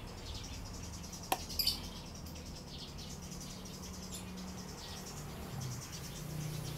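Birds chirping in short high calls in the background, with a single sharp click about a second in.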